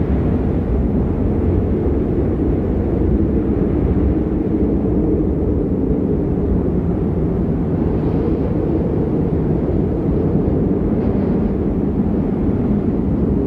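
Steady low rumbling wind of a snowstorm ambience, an even rush without gusts or breaks.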